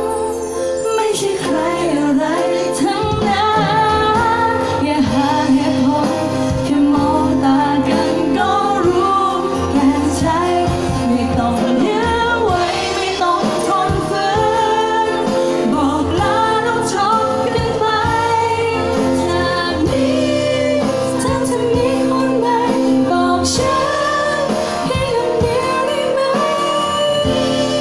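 A woman singing a Thai pop ballad live into a microphone, with guitar accompaniment.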